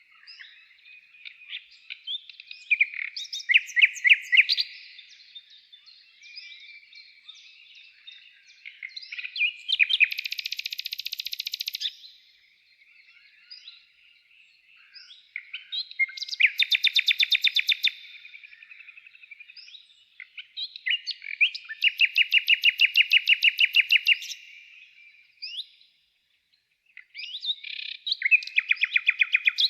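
A small songbird singing long, varied phrases of rapid trills and chirps, with brief pauses between phrases.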